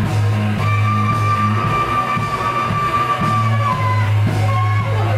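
Live band playing: long held melody notes over a steady low bass line and regular drum beats.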